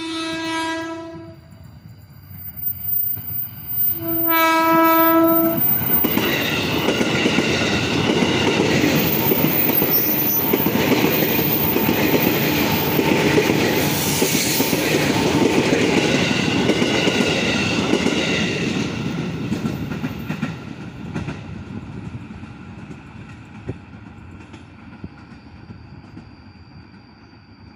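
Electric KRL commuter train sounding two short horn blasts, the driver's greeting to the trackside watcher. It then runs close past with a loud rumble and clatter of wheels on the rails, which fades away after a dozen seconds.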